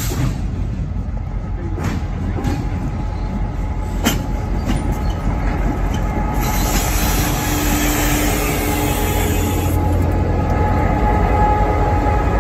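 CSX GP38-3 diesel locomotive rolling slowly past close by, its engine running steadily and growing louder as it draws level, with a few clicks and thin squealing tones from the wheels on the rails. A hiss starts about six seconds in and stops about three seconds later.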